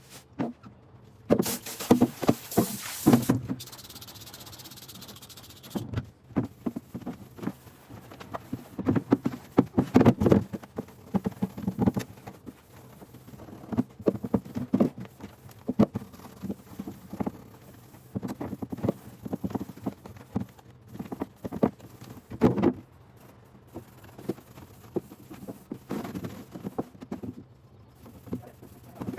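Household objects being handled and set down, with irregular clatter and knocks and a short hiss about two seconds in.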